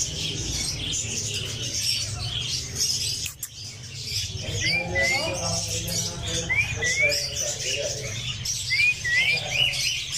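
Many small birds chirping and twittering. From about halfway, a call of two short rising chirps repeats every second or two.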